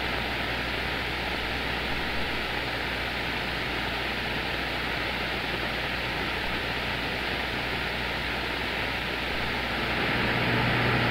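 CB radio receiver on the 11-metre band (27 MHz) hissing with band noise and static between transmissions, with a low steady hum under it. The hiss rises a little near the end.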